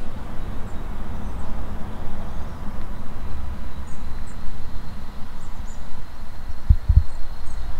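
Wind buffeting the microphone in a loud, uneven low rumble, with small birds chirping faintly and high now and then. Two low thumps come close together near the end.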